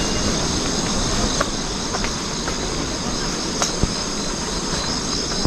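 A steady rushing noise with insects chirring high over it, and a few light, irregular ticks of footsteps on the bridge's steel grating deck.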